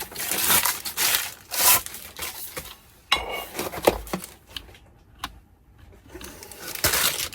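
Plastic packaging being crinkled and pulled off new Holley EFI fuel rails, in rustling bursts, with a few clicks and a knock of the parts being handled about four seconds in.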